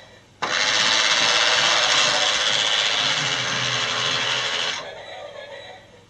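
LEGO Duplo Intelli-Train locomotive running along its plastic track, a steady noisy whir of motor, gears and wheels. It starts suddenly about half a second in and fades out at about five seconds.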